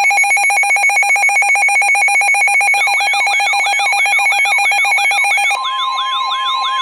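Electronic emergency-alert tones. A rapid two-tone trill runs for about five and a half seconds, joined about three seconds in by a repeating whooping sweep of about three a second. Near the end the trill gives way to a steady tone near 1 kHz, the NOAA Weather Radio 1050 Hz warning alarm tone that comes before the spoken severe thunderstorm warning.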